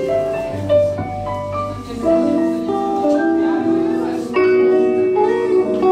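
Live jazz on electric keyboard and guitar: an instrumental passage of held chords and melody notes.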